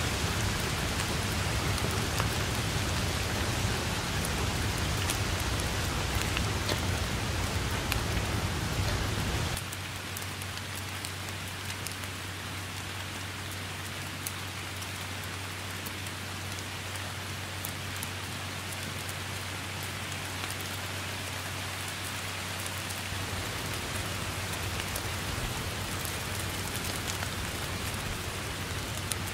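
Steady rain falling on tall grass and the leaves of a bushy tree, a dense patter of drops. About a third of the way in the sound abruptly gets a little quieter and loses its low rumble, then slowly builds again toward the end.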